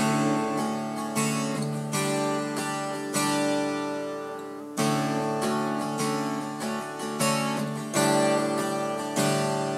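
Instrumental passage of a song: guitar chords struck about once a second, each left to ring.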